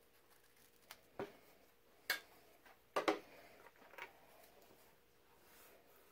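About half a dozen sharp clicks and clacks from hand work with paper patches: scissors snipping paper strips, and a plastic tub of cast lead bullets being handled.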